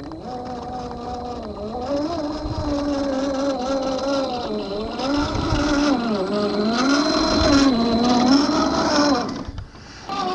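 RC4WD Trail Finder 2 1/10-scale crawler's electric motor and gearbox whining, the pitch gliding up and down with the throttle. It grows louder as the truck passes close and drops away near the end as it drives out of view.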